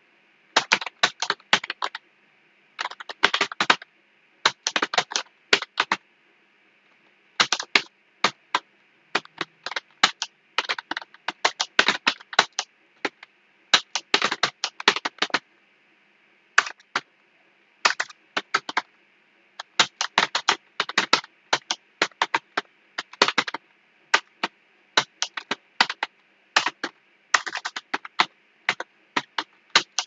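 Typing on a computer keyboard: quick runs of key clicks, about three a second on average, broken by short pauses, with a gap of over a second about six seconds in.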